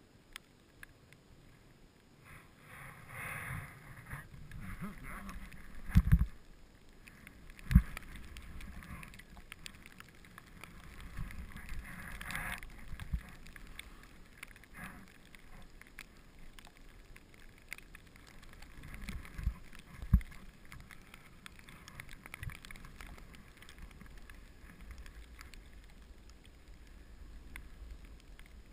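Snow hissing and scraping under edges on a downhill run, swelling with the turns, with a few dull low thumps from bumps: two close together and one past the middle.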